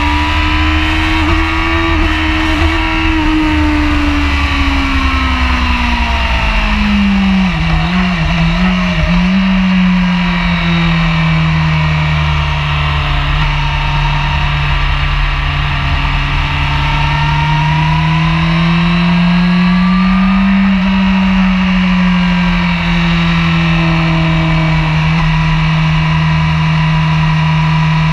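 Sport motorcycle engine at speed on a racetrack, heard onboard over heavy low wind rumble on the camera mic. The engine note falls as the rider slows a few seconds in, wavers briefly as the corner is entered, then holds fairly steady through the bends with a gentle rise and fall past the middle.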